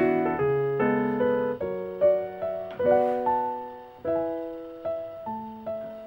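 Background piano music: single notes and chords struck at a gentle pace, each one fading away.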